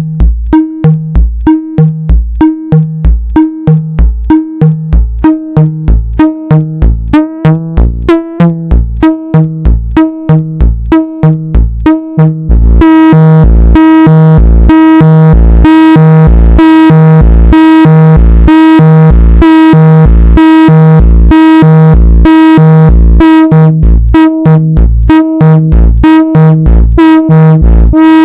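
Make Noise 0-Coast analog synthesizer playing an arpeggiated bass pattern of short, plucky notes, about two a second. About twelve seconds in, the notes run together into a continuous, much brighter tone while the pattern carries on.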